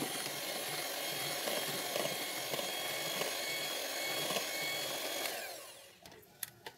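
Electric hand mixer running steadily, its wire beaters whipping wet batter; the motor stops and winds down about five seconds in. Two light clicks follow near the end.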